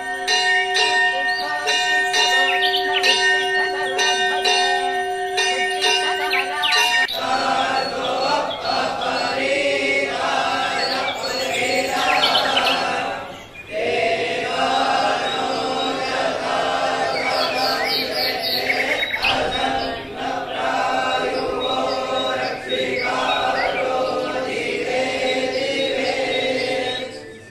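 Hand bells ringing in rapid repeated strikes over a steady held tone, the sound of a morning aarti. About seven seconds in this gives way to devotional singing with music, which briefly drops out near the middle.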